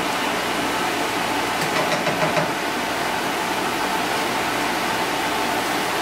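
Chopped shallots, garlic, chilies and tomato frying in oil in a pan, with a steady sizzle, and a few light clicks of the spatula against the pan about two seconds in.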